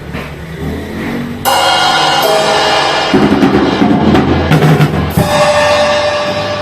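Drum kit being played to test Armada Achilles AXL cymbals: drums with a cymbal crash about a second and a half in, a run of heavy drum hits in the middle, and another crash near the end, the cymbals ringing on.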